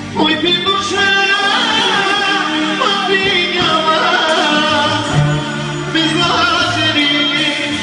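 A man singing live through a handheld microphone over amplified band accompaniment, his voice sliding and wavering on long held notes.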